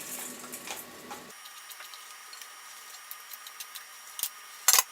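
Spoon scraping and tapping inside a copper still column as spent, dried lavender is dug out: faint small ticks and scrapes, then one sharp metallic clink near the end.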